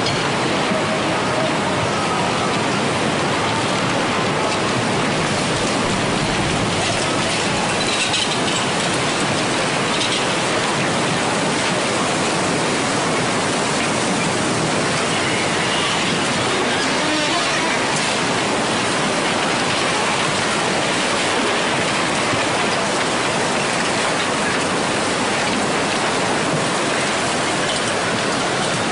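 Tsunami floodwater surging through a town street, a loud, steady rush of water carrying debris, with a few faint cracks along the way.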